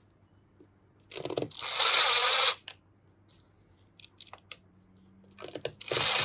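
A power tool winding in the engine side-cover's case bolts, running in two bursts of about a second and a half each, the second starting near the end. A few small clicks come between the bursts.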